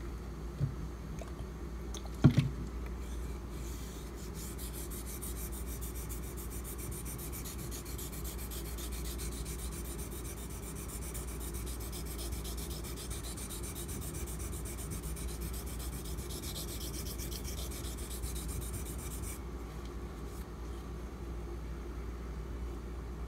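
Steel knife blade, a Ganzo folder in 440C, being worked back and forth on a Nubatama Ume extra-hard 1000-grit whetstone: a continuous fine scraping hiss for about sixteen seconds that stops shortly before the end. A sharp knock about two seconds in is the loudest sound.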